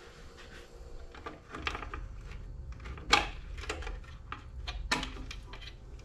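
Hands working on a garage door opener unit: scattered clicks and knocks of parts being handled, two sharper ones about halfway through and near the end, over a faint low rumble.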